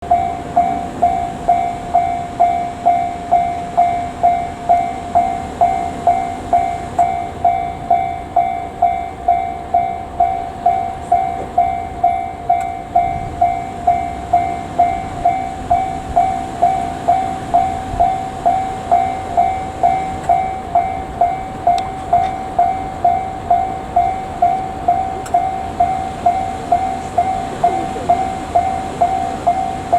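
Japanese railway level-crossing warning bell ringing at an even, quick pace of a little under three dings a second, warning of an approaching train.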